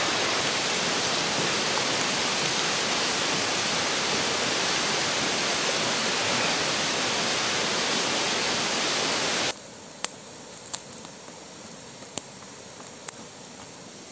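Steady rush of a nearby river's flowing water, then an abrupt cut to a much quieter background where a campfire crackles with a few sharp pops.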